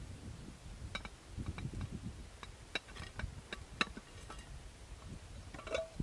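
Light, irregular clinks and taps of camp cookware and utensils being handled, about a dozen small metallic knocks with a short ring, over a low rumble of wind on the microphone.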